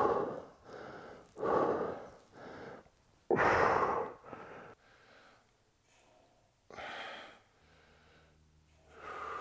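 A man breathing hard under exertion while holding a kettlebell overhead: separate forceful breaths every second or two, the loudest about three and a half seconds in.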